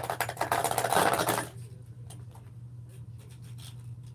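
Two Beyblade spinning tops clattering and grinding against each other and the plastic Beyblade Burst stadium, a dense rapid rattle. It drops off sharply about one and a half seconds in, leaving scattered light clicks as the tops spin on.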